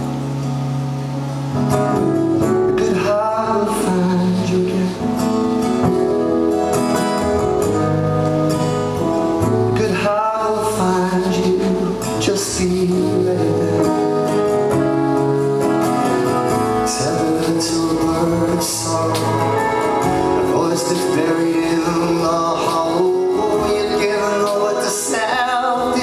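A band playing a song live: strummed acoustic guitar over held low notes and cymbals, with a man singing.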